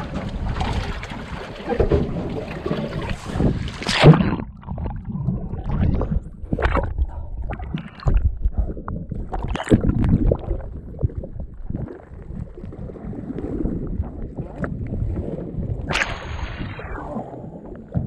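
Wind and sloshing water on the microphone, then a splash about four seconds in as the action camera goes under. After that comes muffled underwater rushing and bubbling with scattered clicks, until a second splash near the end as it breaks the surface.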